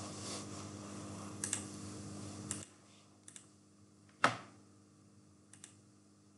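A handful of sharp computer mouse clicks, the loudest about four seconds in, over a faint steady hum that cuts off partway through.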